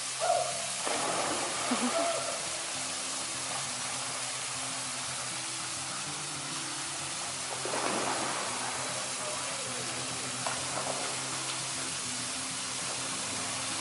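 Steady rush of a small waterfall splashing over sandstone boulders into a rock pool, with brief voices near the start and again about eight seconds in.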